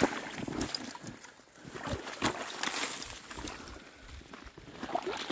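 Footsteps splashing and sloshing through shallow meltwater and slush, a series of irregular splashy steps.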